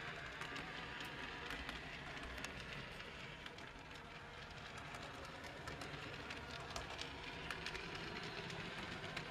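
Small electric motor of an OO gauge model tram whirring steadily as it runs along the track, with many small clicks from the wheels on the rails.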